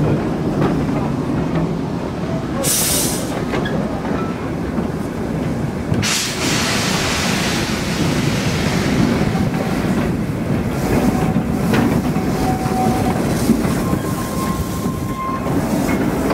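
Narrow-gauge steam locomotive pulling away, with a short burst of steam hiss about three seconds in and a longer hiss starting about six seconds in. After it, its train of small wagons rumbles past on the track, with a faint wheel squeal near the end.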